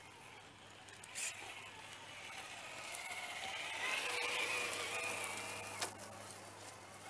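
Electric motor and gearbox whine of a TRX4 Bronco RC crawler driving close by, its pitch wavering with the throttle, growing louder about halfway through and then fading. Two sharp knocks, one about a second in and one near the end.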